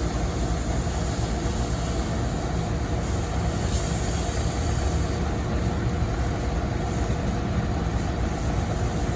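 Brazing torch flame burning steadily while copper refrigerant lines are heated to braze them onto a compressor.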